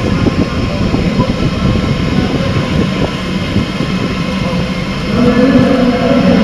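Large Delta WASP 3MT delta 3D printer with a pellet extruder running: a steady mechanical rumble, with a humming tone that comes in about five seconds in.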